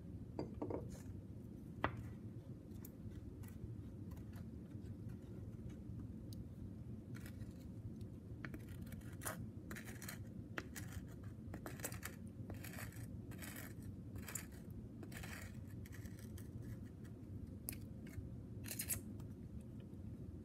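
Wet, thick clay being stirred in a glass beaker: a run of short, scratchy scrapes, with a few light knocks near the start, over a steady low hum.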